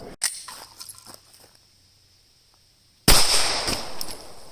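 Glock 19 Gen 5 9mm pistol firing: a short sharp crack right at the start, then a loud shot about three seconds in that rings and echoes out for over a second.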